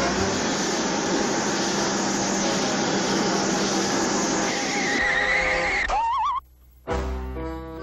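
Cartoon sound effects: a long, loud, rushing skid-like noise, then a brief wavering whistle that rises in pitch, and a moment later orchestral cartoon music with plucked, stepping notes.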